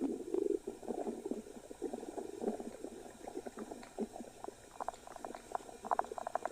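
Stomach gurgling: an irregular run of many small pops and crackles, with a cluster of sharper clicks near the end.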